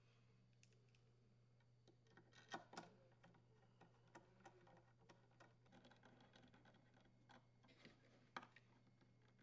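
Faint, irregular ticking and clicking of a screwdriver threading the mounting screws through a plastic blower fan, over a steady low hum.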